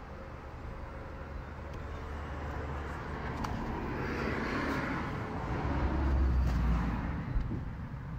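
Road traffic: a vehicle passing, its noise building over several seconds and then easing off, over a steady low rumble.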